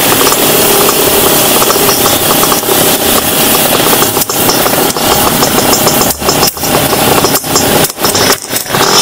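Two-stroke motorcycle engines running at idle, loud and close, with the camera bike being a Suzuki Satria 120 S fitted with an aftermarket exhaust.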